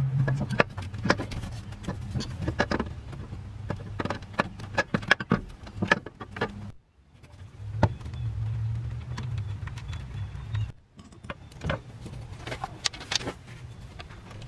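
Clinks and knocks of metal parts and tools as a replacement alternator is set into place and its mounting bolt is threaded in, over a low steady hum. The sound breaks off briefly twice.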